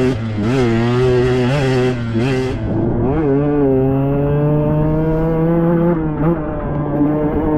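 Single-cylinder two-stroke engine of a KTM 125XC dirt bike revving up and down through quick throttle changes. After about three seconds it holds a high, slowly rising note on steady throttle, with a brief dip about six seconds in.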